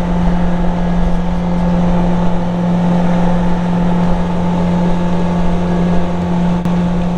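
Boat motor running steadily at a constant speed, a loud, even drone over a low rumble.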